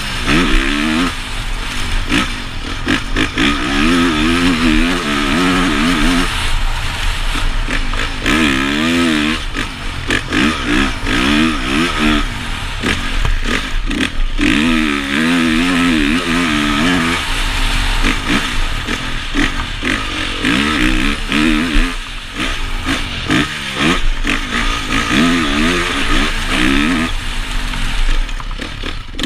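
2014 Honda CRF450's single-cylinder four-stroke engine revving up and falling back again and again as the throttle is opened and closed on a dirt motocross track, with steady wind rush on the helmet-mounted camera.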